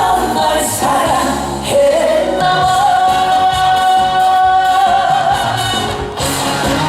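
Live trot song with band backing. A melodic line holds one long note for about three seconds in the middle.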